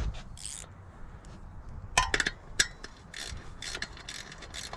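Sharp, irregular metal clicks of a nut being tightened down on a dirt bike wheel's rim lock or valve stem, starting about halfway through.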